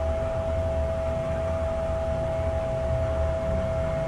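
Steady shipboard machinery hum aboard a large car ferry: a constant whine over a low rumble that does not change.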